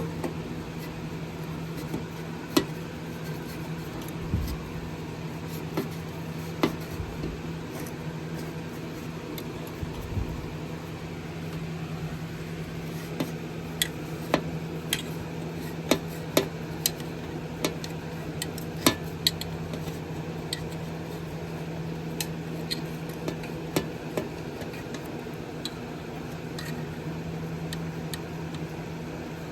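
Scattered light clicks and knocks of small metal carburetor parts being handled and fitted together, over a steady low hum.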